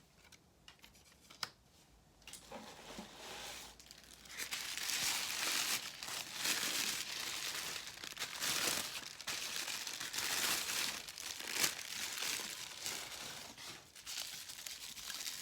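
Tissue paper crinkling and tearing as a wrapped item is unwrapped by hand: a few light clicks at first, then continuous crackling rustle from about two seconds in, easing off near the end.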